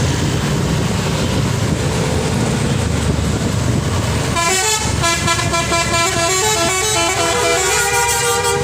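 Heavy truck engine and road noise rumbling steadily. About four seconds in, the truck's telolet horn starts playing a quick multi-note tune that steps from pitch to pitch.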